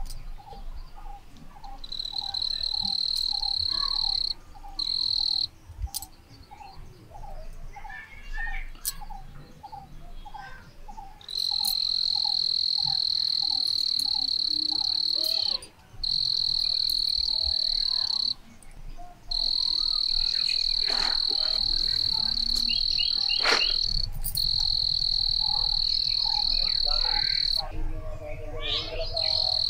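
Frogs and insects calling. A shrill, steady trill runs in long stretches with short breaks, and in the first ten seconds a rapid series of croaks comes about two or three a second. A few sharp knocks sound a little past the middle.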